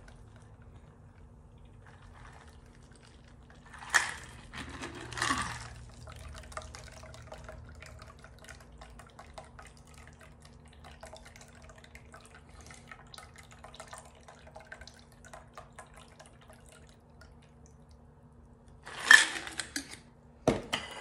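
Shaken cocktail poured from a stainless steel cocktail shaker through its strainer into a martini glass: the liquid trickles and drips, with ice crackling in the metal shaker. Two sharp knocks come about four and five seconds in, and a louder clatter of the shaker near the end.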